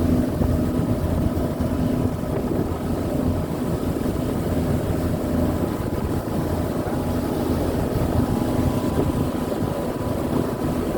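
Steady engine drone and rumble heard inside a moving bus, with a constant low hum and fainter higher tones.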